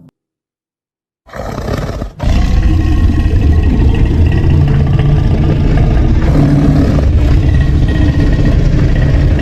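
A made-up monster roar, mixed from animal and film-dinosaur sound effects. It starts after about a second of silence, then from about two seconds in becomes a loud, deep roar that is held without a break.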